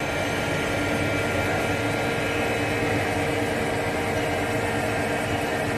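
1992 Okuma LB-25 CNC lathe running: a steady machine hum with several held whining tones over a low rumble.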